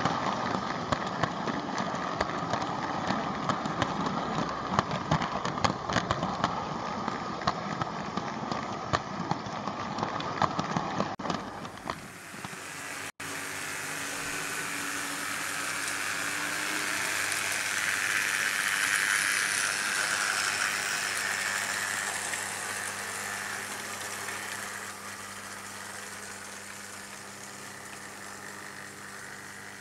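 Märklin H0 model trains running on stamped-steel M-track. First comes a dense rattling clatter of wheels over the rail joints, heard close up from aboard a moving wagon. After a sudden cut about twelve seconds in, a smoother whirring run of a passing train swells to its loudest around two-thirds through and fades, over a low steady hum.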